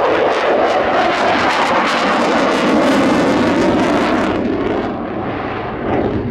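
Dassault Rafale fighter's twin Snecma M88 turbofans in afterburner during a display pass: loud jet noise with a rapid crackle. About four seconds in the high hiss and crackle fall away, leaving a duller rumble.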